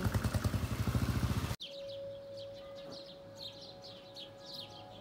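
A vehicle engine running close by with a fast, even throb, cut off abruptly about one and a half seconds in. Then birds calling in a quick series of short, falling chirps over a faint steady tone.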